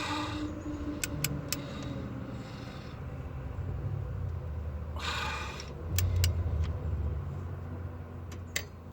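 Torque wrench working an engine's cylinder head bolt: two short ratcheting strokes, one at the start and one about five seconds in, with scattered sharp clicks over a steady low hum. The last clicks come near the end, as the bolt comes up to its 45 ft-lb setting.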